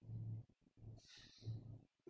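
Whiteboard marker being drawn across a whiteboard, giving a short scratchy stroke about a second in. Under it runs a faint low hum that cuts in and out.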